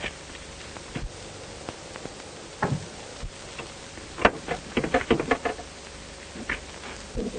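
Scattered knocks and clicks over the steady hiss of an old film soundtrack, with a quick run of them about four to five and a half seconds in and another cluster near the end.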